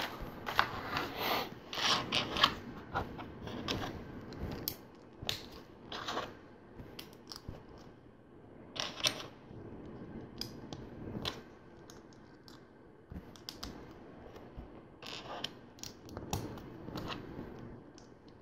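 Plastic LEGO pieces being handled and pressed together: irregular small clicks and rattles, busiest in the first few seconds.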